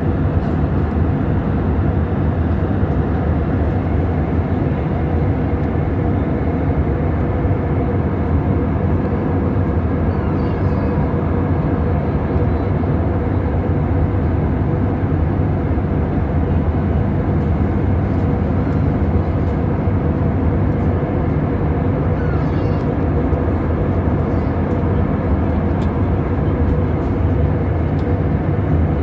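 Cabin noise of an Airbus A320neo-family airliner in cruise: steady engine and airflow noise with a faint steady hum in it.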